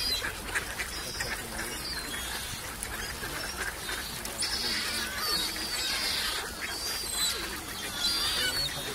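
Crowded mixed flock of waterbirds (mallards, coots and mute swans) calling over one another, a dense, continuous chatter of many short overlapping calls and high chirps.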